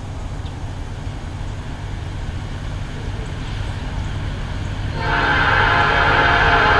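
Norfolk Southern heritage 1070, an EMD SD70ACe diesel-electric locomotive, approaching with a low rumble that slowly grows louder. About five seconds in, its air horn starts sounding, a steady chord of several tones that becomes the loudest sound and is still going at the end.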